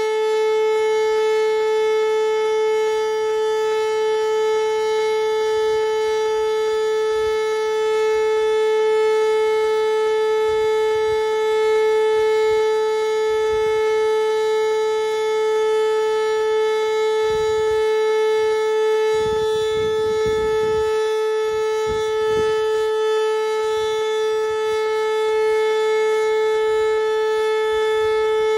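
Whelen WPS electronic outdoor warning siren sounding a loud, steady, unwavering tone that holds one pitch throughout.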